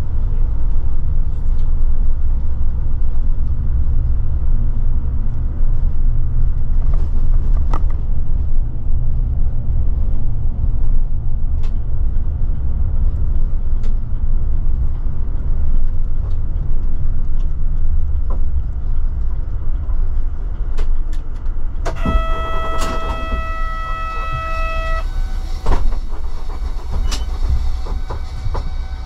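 Steady low rumble of a coach's engine and tyres on the road, heard from inside the bus. About 22 seconds in, a steady pitched tone sounds for about three seconds.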